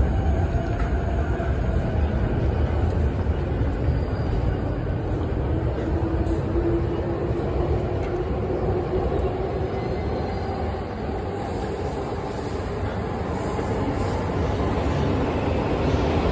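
Train rumbling on the elevated tracks overhead, a steady low roar with a faint whine midway, heard through the noise of a busy station passage.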